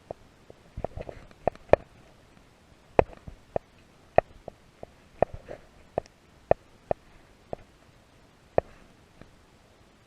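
A run of sharp, irregular knocks or slaps, one or two a second with short pauses between them.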